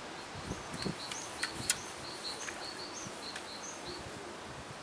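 A small bird chirping in a quick series of short, high notes over a steady outdoor hiss, with a few sharp clicks, the loudest about a second and a half in.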